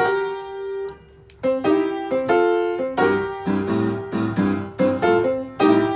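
Digital piano playing a blues figure built on slides: a finger slips from a black key onto the neighbouring white key to fake a bent note. After a brief pause about a second in, the phrase is repeated, and left-hand chords join about three seconds in. It ends on a loud chord.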